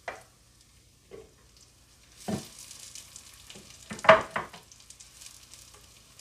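Sliced onions going into hot oil in a clay pot: a few short knocks, then sizzling that starts a little over two seconds in. A wooden spatula knocks and scrapes against the pot as the onions are stirred, loudest about four seconds in.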